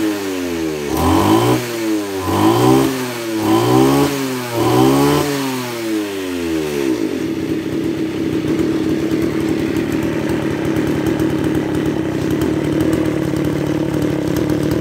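Kawasaki TJ27 27cc two-stroke brush cutter engine revved hard in about five quick throttle bursts, each rising and falling back. About seven seconds in it drops to a steady idle.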